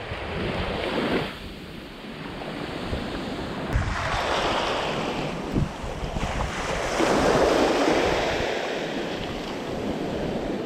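Small waves washing up on a sandy beach, the surf swelling and fading about three times, with wind buffeting the microphone.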